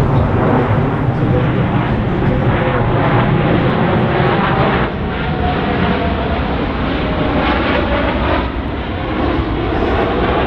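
Loud engine noise of a Blue Angels display aircraft flying past, steady with slight swells and dips.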